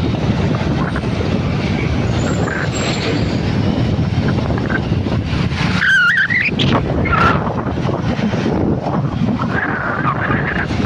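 Wind rush and road noise while riding a motorcycle, a loud steady roar with the engine low underneath. About six seconds in, a short, high, wavering tone sounds over it.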